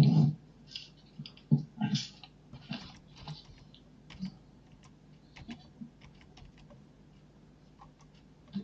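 Irregular soft clicks and taps, with one louder, lower burst right at the start.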